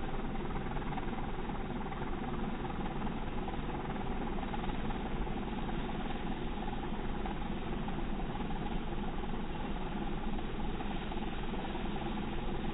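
John Deere tractor towing a Krone Swadro 1400 Plus twin-rotor hay rake, its engine and the working rake making a steady, even drone.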